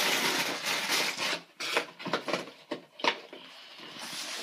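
Handling noise: rubbing and scraping as the camera is picked up and moved close to the microphone, then a few sharp knocks, then quieter rustling.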